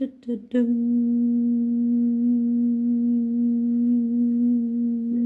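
A single steady tone with a few overtones, held at one unchanging pitch from about half a second in.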